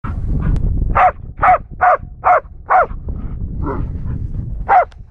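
Hunting dog barking at a caged bear during bear-baiting training: a run of five quick barks about a second in, then two more spaced barks.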